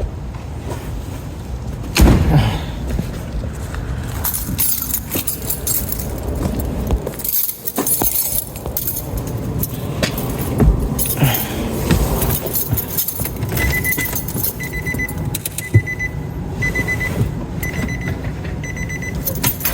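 Handling noise and knocks around a pickup truck, with a sharp thump about two seconds in. Then, from about two-thirds of the way through, the truck's warning chime beeps about once a second.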